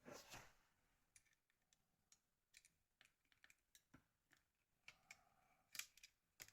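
Faint clicks and taps of small plastic phone parts being handled and fitted together while a Nokia N73 is reassembled, with a brief scrape at the start and a scatter of irregular clicks after it.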